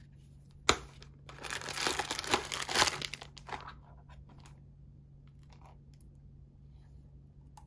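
A sharp click under a second in, then clear plastic wrapping crinkling for about two seconds as a photo-paper cartridge in its wrapper is handled, followed by a few faint ticks.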